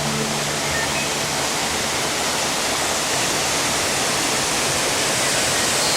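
Waterfall: a steady, loud rush of falling water with no break.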